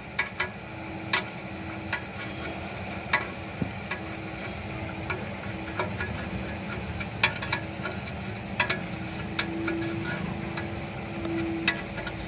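Scattered metal clinks and taps from hand tools as a new ball joint is fitted into an Audi Q5 steering knuckle, over a steady low hum.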